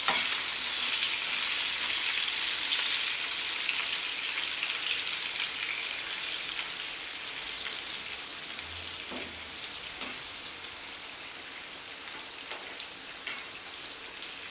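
Cornmeal-coated okra slices frying in shallow vegetable oil in a pan: a steady sizzle that slowly dies down, with a few light taps in the second half.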